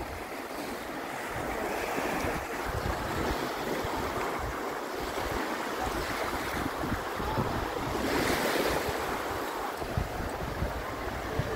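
Small waves washing onto a sandy shore, with wind buffeting the microphone; one wash is louder about eight seconds in.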